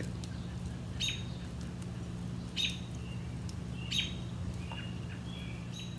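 Small birds chirping: short high chirps about every second and a half, then a few brief thin notes near the end, over a steady low hum.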